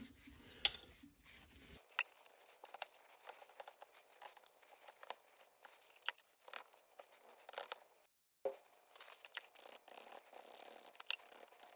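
Faint rustling and scraping of a solvent-dampened paper towel scrubbing sticky glue residue off a laptop's plastic keyboard deck and metal hinge frame, in short irregular strokes.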